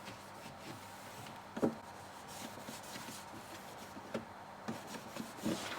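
Microfiber cloth wiping the plastic inside of a fridge: soft rubbing with a few light knocks, the loudest about a second and a half in.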